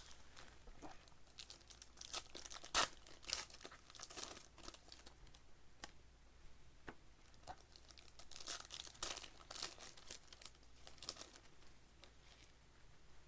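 Plastic wrappers of trading-card packs being torn open and crinkled by hand: irregular sharp crackles, the loudest snap about three seconds in.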